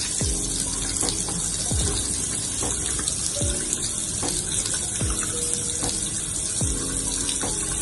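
Tap water running steadily into a sink during handwashing, over background music with a steady beat of about one thump a second.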